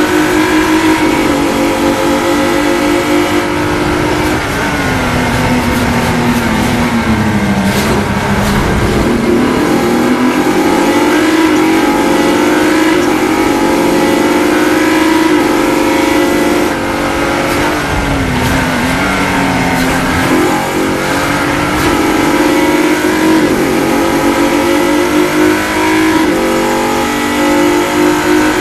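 Single-seater racing car engine at high revs, heard from on board, with the revs falling under braking about four seconds in and again about seventeen seconds in, then climbing again as the car accelerates out of the corner.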